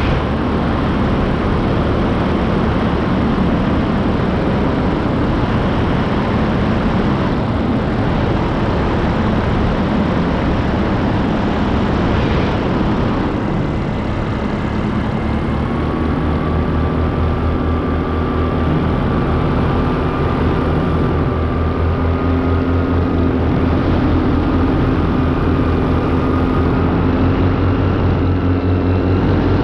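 Paramotor engine and propeller running steadily in flight. About halfway through, its tone becomes more distinct and then climbs slowly in pitch.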